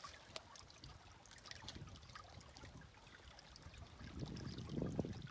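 Faint trickle of a small forest stream running under fallen logs, with scattered light clicks and snaps, and a soft low rumble near the end.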